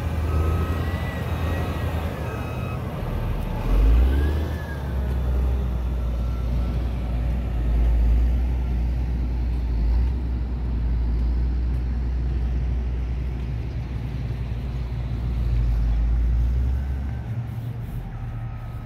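Caterpillar 140M motor grader's diesel engine running with a steady low rumble that swells and eases a few times. A few short high tones rise and fall over it in the first few seconds.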